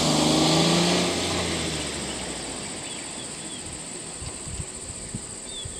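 A motor vehicle's engine runs close by, its pitch sinking as it slows and dies away over the first two seconds. After that a steady high insect buzz carries on, with a few short bird chirps near the end.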